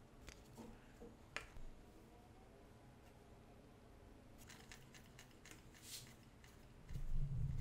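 Scattered small clicks and taps of hands handling the plastic syringe, wooden posts and CD flywheel of a homemade model steam engine, with a louder low rumble starting about seven seconds in.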